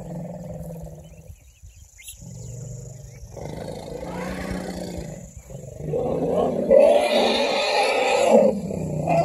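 African elephants calling: low rumbling calls at first, growing into loud roars from about six seconds in.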